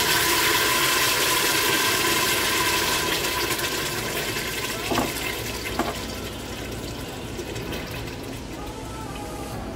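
Water rushing, loud at first and then slowly fading, with two light knocks about five and six seconds in.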